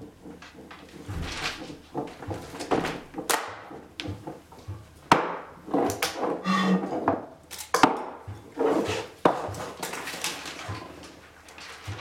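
Wordless sounds from a physical-theatre group: a run of breathy whooshes, some rising and some falling, mixed with sharp knocks on a wooden floor, and a brief hummed voice sound about halfway through.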